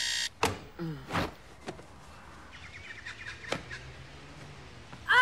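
Bedside alarm clock buzzing, cut off with a click as it is slapped off about a third of a second in. Then faint bird chirps, short and rising.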